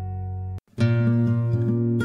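A held musical chord cuts off with a click just over half a second in, and after a brief gap an acoustic guitar piece begins, plucked and strummed as the show's ending music.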